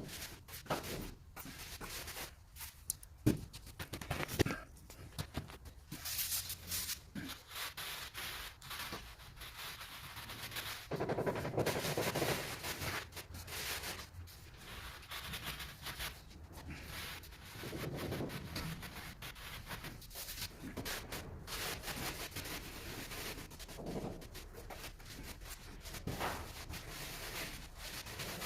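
Irregular scraping and rubbing with scattered sharp knocks from hand tools at work on a floor, with a denser stretch of scraping about halfway through.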